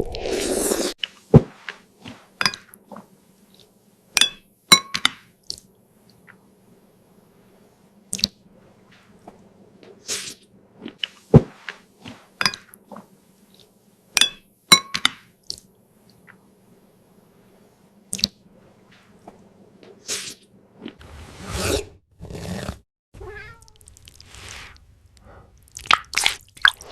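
Sharp crunching and clicking bites, one every second or two, mixed with short cat meows; the same group of sounds comes round twice.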